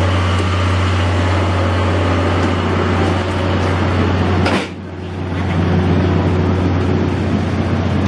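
Steady low mechanical hum inside a 14 series passenger coach, from the coach's onboard running equipment. A sharp click about halfway through is followed by a short dip in the hum.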